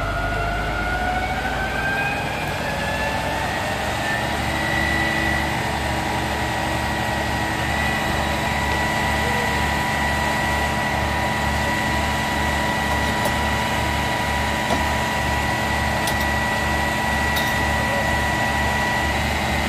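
A fire engine's motor driving its water pump: it rises in pitch over the first few seconds, then runs steady at pumping speed, with a low throb pulsing about one and a half times a second.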